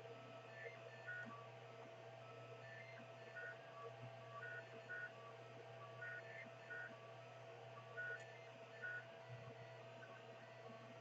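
Cocoon Create 3D printer's stepper motors giving short, faint pitched tones that jump between pitches a few times a second as the print head moves, over a steady low hum.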